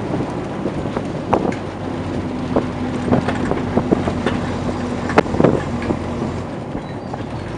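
A moving vehicle's engine running steadily, with road and wind noise and scattered knocks and rattles as it travels over a winding road.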